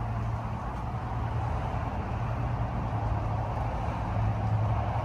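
Steady rumble of distant engine noise, with a low hum that swells slightly near the end.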